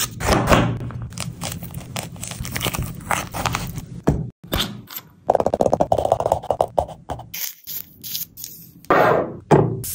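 Close-miked sounds of preparing a whole orange in quick succession: a fruit sticker peeled off the rind, a metal spoon scraping out the juicy flesh, and a wooden skewer pricking the peel. The sounds come as short scrapes, crackles and wet crunches, broken by abrupt cuts.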